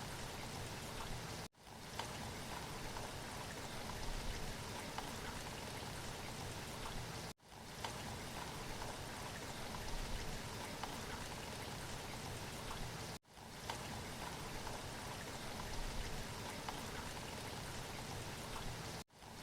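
Steady hiss like rain or running water, cutting out briefly about every six seconds and fading back in.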